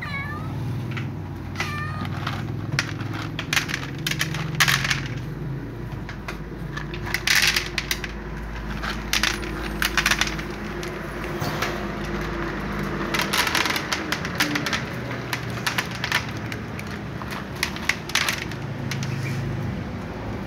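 A cat meows a few times in the first two seconds, short curved calls. Then dry cat kibble clatters onto a tray and cats crunch it, in clusters of sharp clicks, over a steady low hum.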